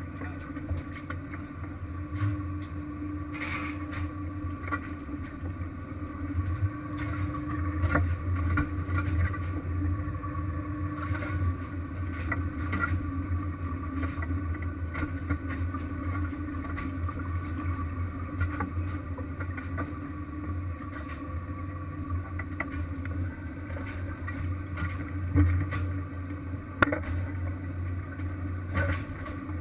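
Fishing vessel's engine running with a steady low hum, with occasional knocks and clanks over it.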